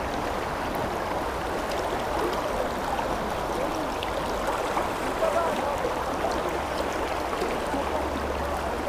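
Steady rushing of a shallow, fast-flowing river.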